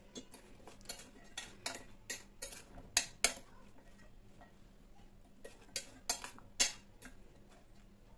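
A spoon stirring chopped vegetables in a stainless steel bowl, giving irregular clinks and scrapes against the bowl's side, the loudest about three seconds in and again around six seconds.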